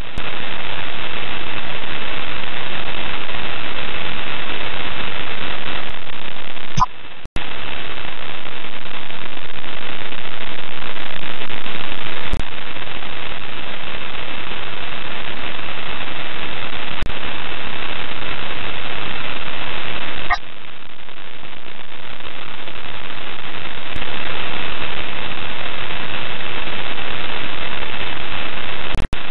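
Open space-to-ground radio channel hissing with static between transmissions: a steady loud hiss with a faint high tone running through it, broken by a few brief clicks and short dropouts.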